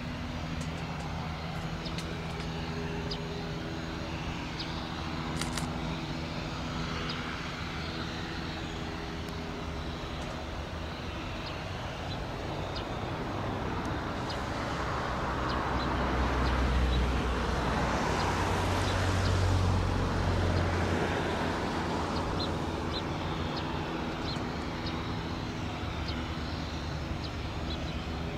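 Airbus A319 jet engines running at taxi power, a steady hum with droning tones. It swells into a louder roar with a deep rumble about halfway through as the airliner passes, then eases off.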